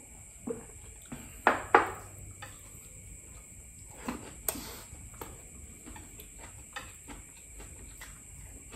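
Close-miked eating sounds: a man drinking water, then eating rice by hand, with swallowing, chewing and scattered small clicks and taps of hand and dish. The loudest are two sharp sounds close together about a second and a half in.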